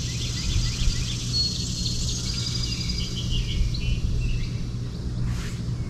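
Outdoor ambience: small birds chirping repeatedly with short high notes over a steady low rumble.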